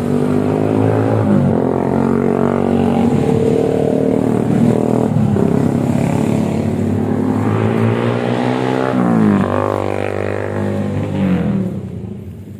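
An engine running close by for about twelve seconds, its pitch dropping about a second and a half in, rising about nine seconds in and dropping again near the end, as it changes speed.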